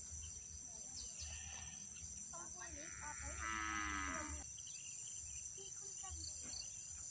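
Steady high-pitched insect chorus, with a drawn-out call lasting nearly two seconds about two and a half seconds in.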